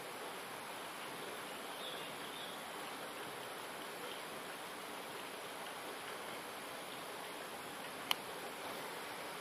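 Steady rush of flowing river water, with a single sharp click about eight seconds in.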